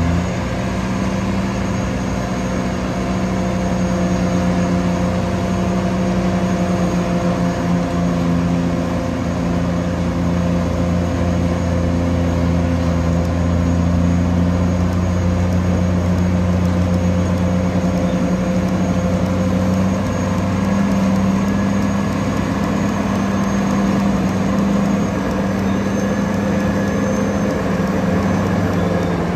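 Caterpillar D9T bulldozer's C18 diesel engine running with a steady deep drone, its pitch shifting slightly a few times.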